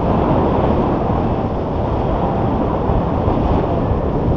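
Loud, steady wind rush buffeting the camera microphone from the airflow of a tandem paraglider in flight.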